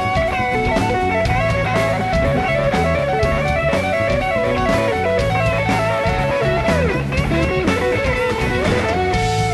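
Live blues-rock band playing an instrumental passage: an electric guitar solo over bass guitar and drum kit, with the lead notes sliding up and down in pitch several times in the second half.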